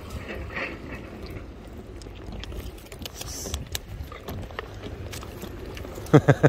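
Wind noise on the microphone, with scattered small clicks and rattles from handling a baitcasting reel held close to it, and a quick run of about four loud thumps near the end.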